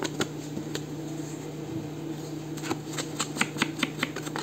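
Paper and craft materials being handled on a work table: light rustling with scattered clicks and taps, then a quick run of taps about three seconds in, over a faint steady hum.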